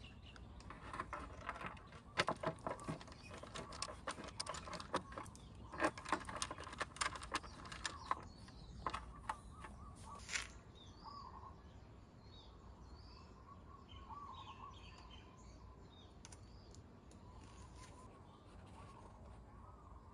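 Irregular clicks and taps of a hand tool working the fasteners of a scooter's plastic front fender, filling the first half. After that it goes quieter, with small birds chirping in the background.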